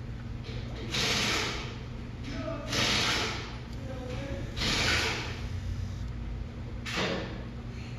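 A new rear wiper motor running through its sweep cycle: a steady low hum with a whirring surge about every two seconds.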